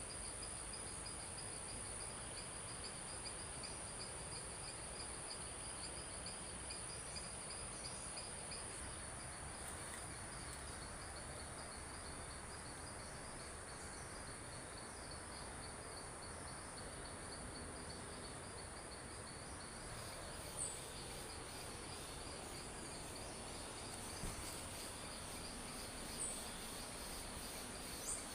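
Insects, crickets among them, trilling steadily: one continuous high trill over a lower pulsing one. A few short, high chirps come in the second half.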